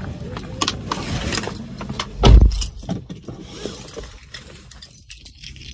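Keys jangling with small clicks and knocks while someone gets into the driver's seat of a Suzuki car, and one heavy thud about two seconds in, the loudest sound, typical of the car door being shut.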